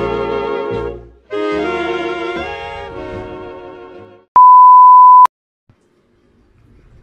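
Intro music that breaks off briefly about a second in, resumes and fades out about four seconds in. Then a single loud, high, steady beep lasting about a second, which starts and cuts off sharply.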